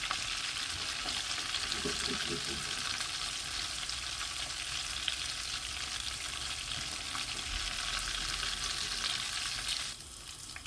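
Croquettes deep-frying in hot oil in a pan, a steady sizzle that drops off sharply near the end.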